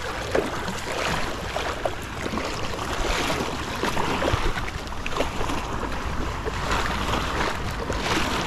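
Shallow water washing and splashing at the shoreline, with a small hooked jack crevalle splashing as it is pulled through the shallows, and wind buffeting the microphone.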